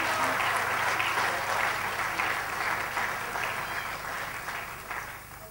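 A congregation clapping in praise, a dense patter of many hands that gradually dies down near the end.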